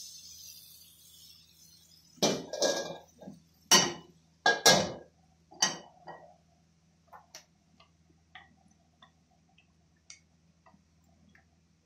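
Cookware on a gas stove: a short hiss fading at the start, then a run of loud metal knocks and clanks of pans being handled, followed by scattered light ticks.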